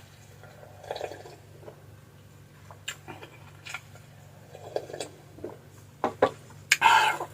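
Close-miked eating sounds from fried fish and clam soup: wet chewing and slurping with scattered small clicks. They grow denser and louder near the end.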